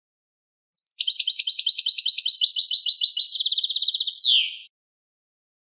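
European goldfinch singing one song phrase of about four seconds: a run of quick, evenly repeated twittering notes, a faster trill near the end, and a closing downward slurred note.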